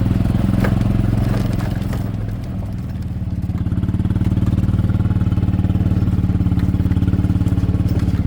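Jeep engine running at low speed while driving, a steady pulsing note that eases off briefly about two and a half seconds in and then picks up again.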